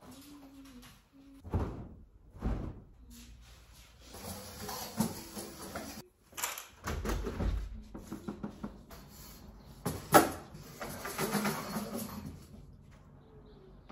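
Laundry being hung and moved on a metal clothes-drying rack: fabric rustling, with knocks and clatters from the rack's frame and a balcony door. The sharpest knock comes about ten seconds in.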